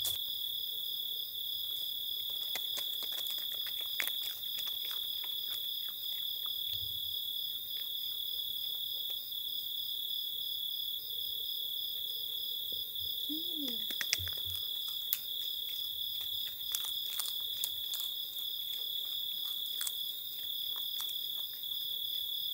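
Crickets chirping in a steady, unbroken high-pitched night chorus, with scattered faint clicks and taps over it.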